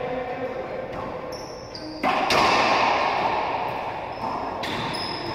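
A racquetball is struck hard about two seconds in, and the crack echoes around the enclosed court. Sneakers squeak briefly on the hardwood floor several times, and a lighter ball hit comes near the end.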